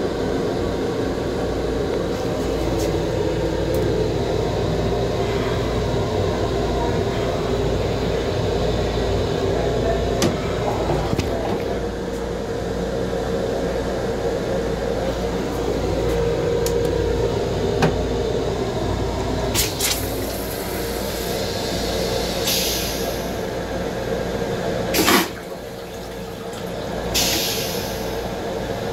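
Toilet in a Long Island Rail Road M7 railcar restroom flushing: a few clicks, then rushes of hissing water. There is one loud, brief whoosh and a last hiss near the end, over the steady hum and rumble of the railcar.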